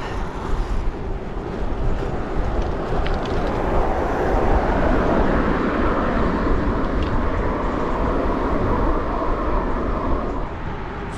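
Road traffic noise with wind rumbling on the microphone, swelling in the middle and easing off near the end.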